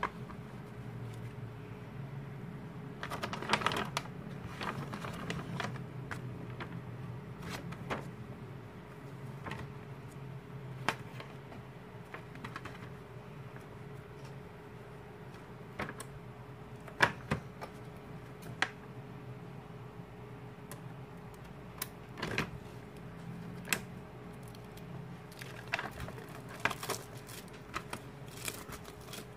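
Cards and paper photo sheets being handled: scattered light taps, clicks and slides, with a few brief crinkles of plastic packaging, over a faint steady hum.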